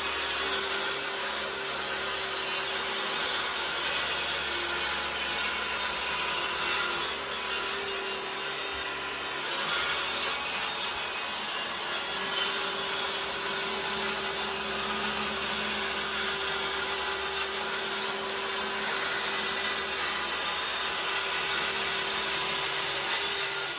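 DeWalt FlexVolt 60-volt cordless track saw cutting wood in one steady, continuous pass, with a brief dip in level about a third of the way through. It stops suddenly at the end. The blade, which the owner says is damaged from hitting something buried in a wood slab, is doing the cutting.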